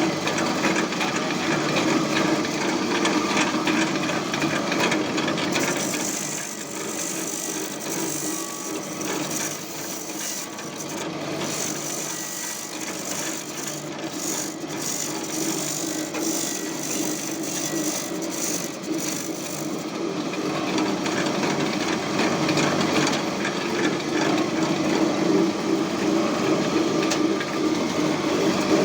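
Satay-skewer sharpening machine running, with skewer sticks rattling and rasping as they are ground to points. The sound turns thinner and hissier from about six to twenty seconds in.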